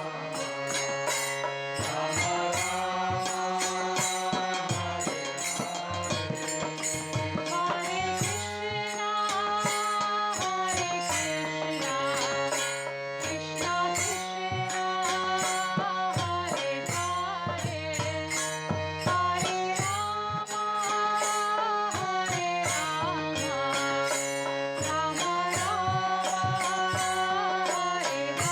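Background music: held melodic notes moving in phrases of a couple of seconds over a light, steady percussive beat.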